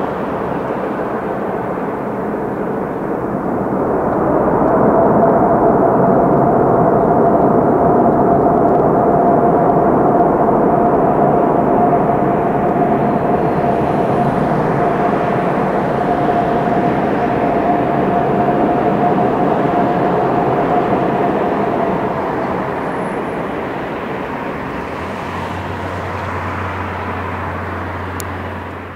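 Jet noise from an Airbus A380-861's four Engine Alliance GP7200 turbofans as the airliner rolls out down the runway after landing. It is a loud rush with a steady whine, swelling about four seconds in and easing off over the last several seconds.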